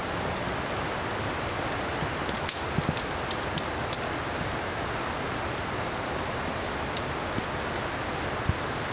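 Steady hiss of rain falling on the forest. A quick cluster of sharp clicks and taps comes a few seconds in, with a couple more later, as camping gear is handled.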